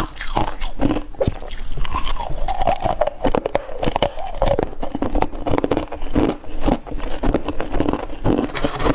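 A person biting and chewing freezer frost and ice close to the microphone: a rapid, continuous run of loud crunches.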